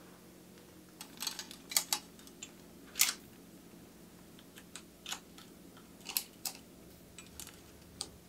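Irregular sharp clicks and taps, about a dozen, the loudest in a cluster a second or two in and a single one at three seconds. These are small parts and tools being handled during bicycle workshop work.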